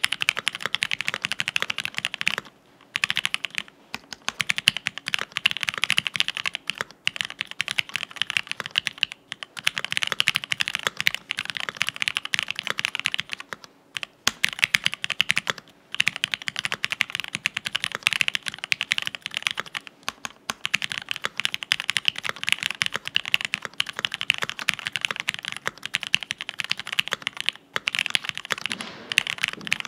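Continuous typing on a TX65 polycarbonate-case mechanical keyboard with lubed Gateron Cream linear switches, an FR4 plate and PBT keycaps. The keystrokes come as a rapid stream of clacks in runs of a few seconds, broken by brief pauses.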